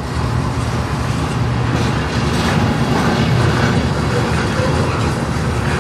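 Diesel locomotives of a freight train passing close by on the near track: a steady engine drone over the rumble of wheels on rail.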